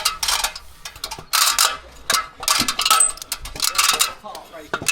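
Repeated light metallic clinking and clattering: many short, sharp hits, some ringing briefly.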